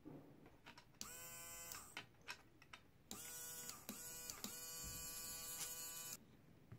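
Small brushed DC motor of a cordless electric screwdriver, run unloaded off its rewired switch: it whines up to speed briefly about a second in, gives a couple of short blips, then runs steadily for about three seconds with brief breaks before cutting off.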